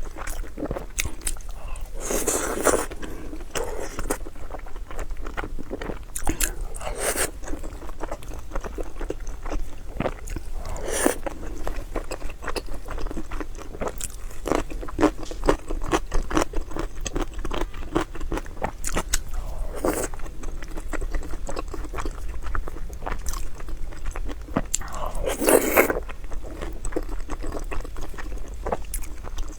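Close-miked eating: steady chewing and biting with many quick wet mouth clicks, broken by a few louder half-second bursts, about five of them.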